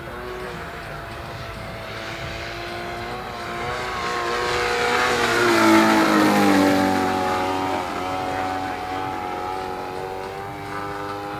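Radio-controlled RV-4 model aeroplane flying past: its engine and propeller drone grows louder, peaks about six seconds in as the pitch drops, then fades back at a lower pitch.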